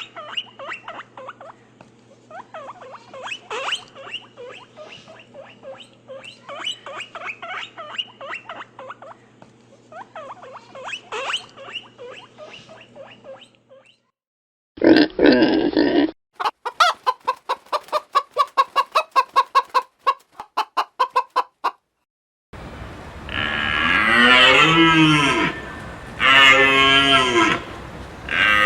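A string of different animal calls, one after another: some fourteen seconds of busy, high squeaking and chirping, a short loud burst, several seconds of rapid clicking at about four clicks a second, then long lowing calls that fall in pitch, which are cattle mooing.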